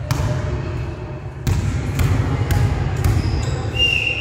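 Volleyball being hit and bouncing on a hard sports-hall floor: a few sharp echoing thuds, about four in all, over the booming hum of a large gym. A thin steady high tone comes in near the end.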